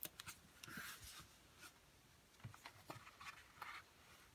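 Faint paper handling: soft rustles and light clicks as small paper stickers are peeled from a sticker sheet and pressed onto a journal page.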